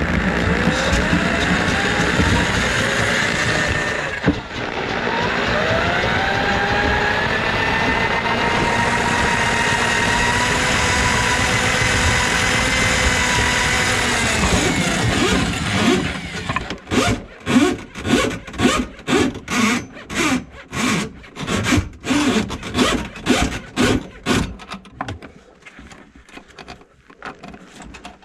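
Electric drum drain auger running with a rising motor whine: it spins up, dips briefly about four seconds in, spins up again and holds steady, then winds down around fifteen seconds, while the cable works through a grease-plugged kitchen sink drain line. Then comes a rhythmic scraping, about two to three strokes a second, for several seconds.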